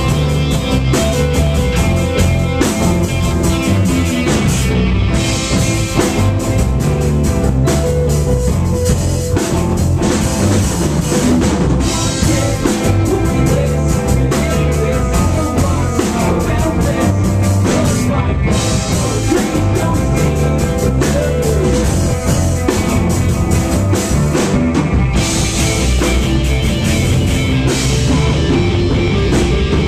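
Rock band playing live: electric bass, electric guitar and drum kit, with a steady beat and a prominent bass line.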